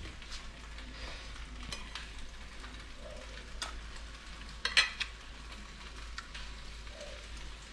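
Faint, steady sizzle of fish frying in a pan, with a few sharp clicks, the loudest a quick cluster about five seconds in.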